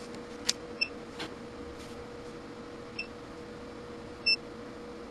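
Homemade surge tester firing 2 kV transients into an Extech MN16A multimeter: a sharp click about half a second in, then three short high electronic beeps, the last near the end the loudest, over a faint steady hum.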